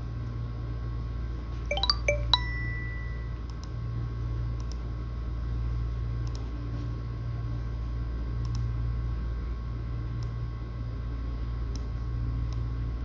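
A quick cluster of short, bright dings about two seconds in, the last one ringing on for about a second, over a steady low electrical hum with faint clicks every second or two.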